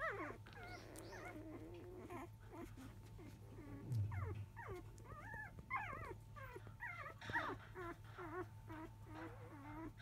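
Five-day-old Labrador retriever puppies whimpering and squeaking: many short high whines that bend up and down in pitch, turning to quicker, lower squeaks near the end. There is a low bump about four seconds in.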